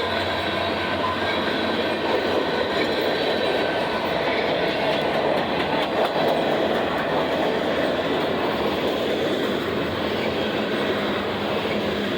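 Union Pacific mixed freight train rolling past, its wheels running on the rails in a loud, steady rumble.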